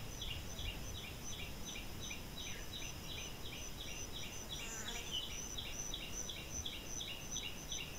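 Quiet outdoor ambience with an animal call repeated steadily, about four short chirps a second, over a faint continuous high pulsing buzz.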